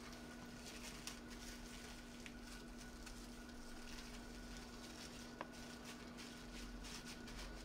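Plastic cling wrap crinkling and rustling as hands press and smooth it tightly around a folded kimbap, with one sharper click about five seconds in, over a faint steady hum.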